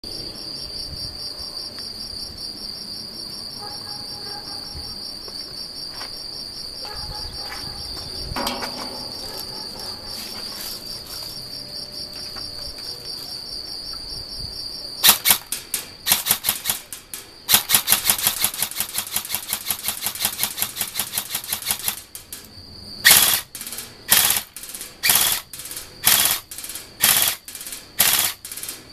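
Crickets trill steadily for about the first fifteen seconds. Then a Bolt SR47 electric airsoft rifle fires: a few short bursts, a long full-auto burst of about four seconds, then a string of single shots about two a second.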